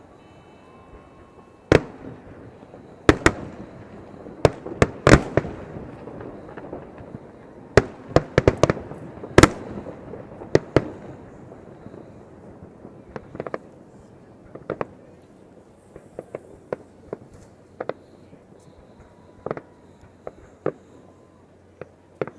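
Aerial fireworks shells bursting in a series of sharp bangs, thick and fast in the first half, then thinning out to scattered, weaker pops, each bang trailing a short echo.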